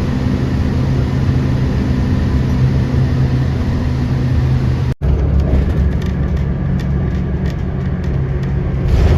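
Loud, steady low rumble of aircraft engines with a few held low tones, cut off abruptly about five seconds in and picking up again from another clip.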